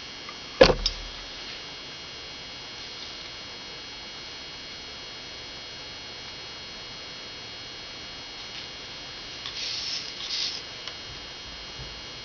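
Steady electrical hum with a faint high whine, broken by one sharp knock just over half a second in and a couple of small clicks. Two short hisses come about ten seconds in.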